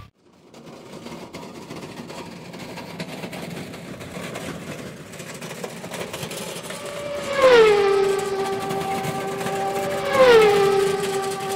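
Rolling noise of a small wheeled stainless-steel trolley grill pulled along a gravel path by its handle, slowly getting louder. About seven and a half and ten seconds in, two sliding musical tones come in; each falls in pitch and then holds.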